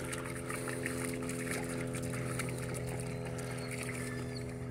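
A steady low mechanical hum, with light splashing from dogs wading in shallow water.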